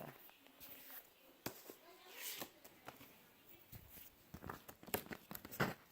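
Faint handling noise of a vinyl record and its sleeve: scattered light clicks and rustles, growing busier near the end.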